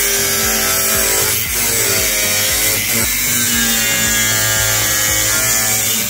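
Angle grinder with a cutting disc slicing through sheet steel, running loud and steady, its whine dipping in pitch twice as the disc is loaded.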